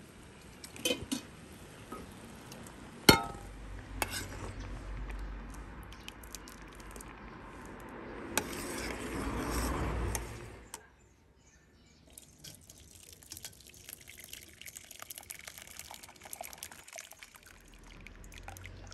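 A spoon clinks a few times against a stainless steel pot of boiling cherries. Liquid then pours, building up and stopping suddenly about eleven seconds in, followed by faint scattered popping and dripping.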